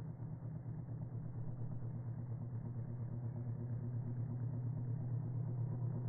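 Radio-controlled model airplane's motor running steadily, growing louder as the plane comes in low toward the listener.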